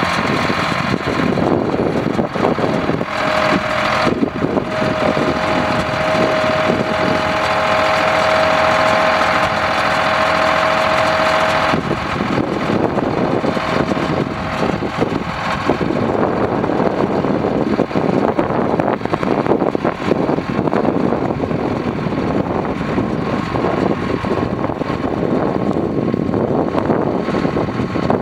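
Engine of a 1977 Chevy 70 well drilling rig running steadily. A steady whine rides on it from about three seconds in until about twelve seconds, and the sound shifts again a few seconds later.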